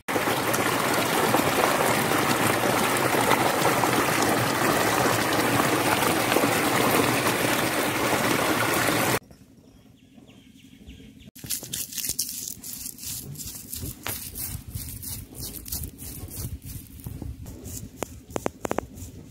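A loud, steady rushing noise for about nine seconds, cutting off suddenly. From about eleven seconds in, a granite grinding stone's roller is rocked over dried red chillies on the slab, with irregular crunching clicks and stone-on-stone knocks.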